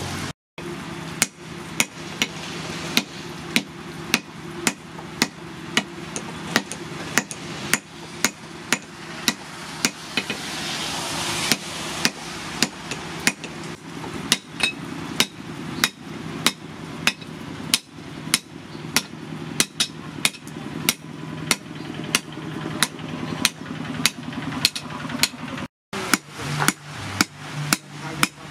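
Hammer blows on red-hot axe steel resting on a steel post anvil, struck in a steady rhythm of about two to three blows a second. A steady low hum runs underneath.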